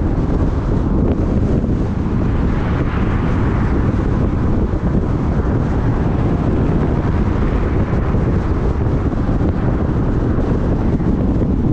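Steady wind buffeting the microphone of a camera on a moving vehicle, mixed with road and tyre noise, with a brief swell in the middle.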